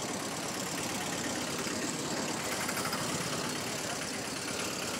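Steady street noise with a motor vehicle engine running.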